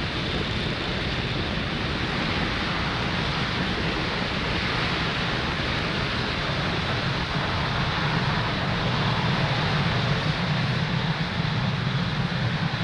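Falcon 9 first stage's nine Merlin 1D engines firing during ascent: a steady roar that grows slightly louder about eight seconds in.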